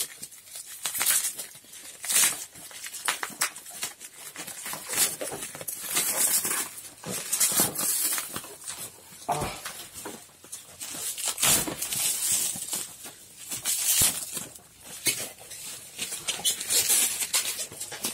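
A game box's packaging being opened by hand: irregular crinkling, tearing and rustling of plastic wrap and cardboard in quick uneven bursts.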